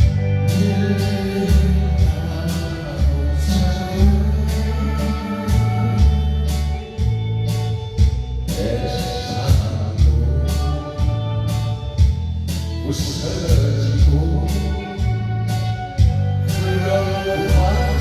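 Korean trot song playing: a sung melody over a heavy, steady bass beat.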